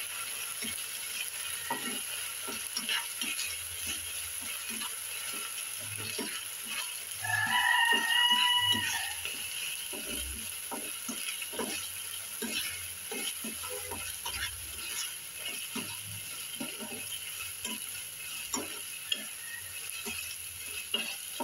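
A metal spatula scrapes and stirs onions and ginger-garlic paste frying in a kadhai, in quick repeated strokes over a faint sizzle. About seven seconds in, a high-pitched drawn-out call of over a second is heard above the stirring.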